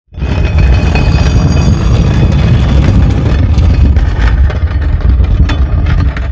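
A loud, deep rumbling and grinding sound effect. It starts abruptly out of silence, keeps a heavy low rumble with gritty noise and a few faint clicks over it for about six seconds, then fades out.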